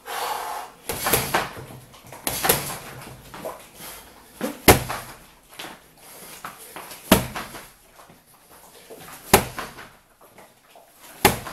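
Strikes landing on a BOB XL freestanding mannequin punching dummy: six hard thuds about two seconds apart, with lighter knocks between them, ringing in a small room. A brief rasping noise comes just before the first hit.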